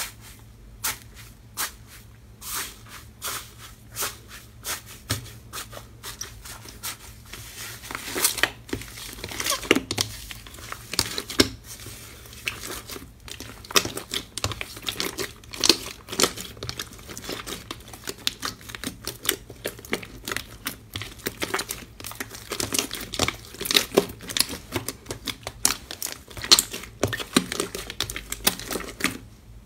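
Thick slime being poked, pressed and kneaded by hand in a metal tray, giving irregular crackling and popping clicks that grow louder and denser about eight seconds in.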